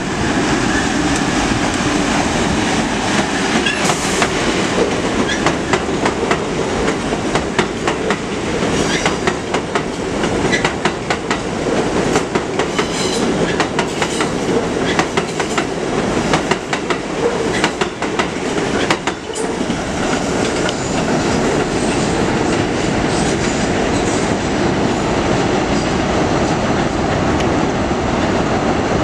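An R62A subway train pulls out of the station and passes close by, its wheels clacking over rail joints, then runs off along the elevated track.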